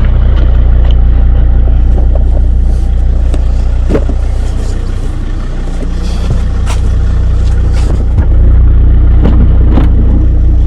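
Volvo XC90's engine idling steadily, with a few light knocks over it.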